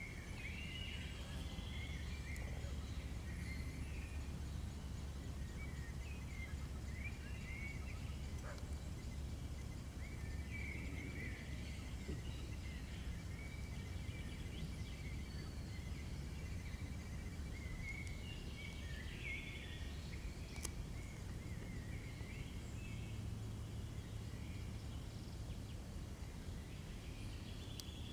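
Woodland ambience: small birds chirping and twittering on and off over a low, steady rumble.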